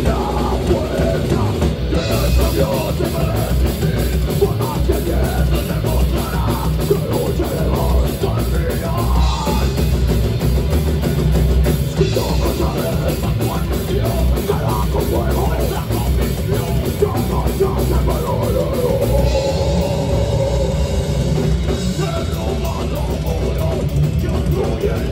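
Heavy metal band playing live: distorted electric guitars and bass over a drum kit hitting in a fast, steady rhythm.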